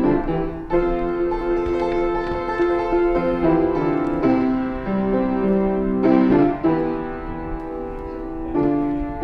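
Background music: a melodic instrumental with sustained notes that change pitch every half second or so.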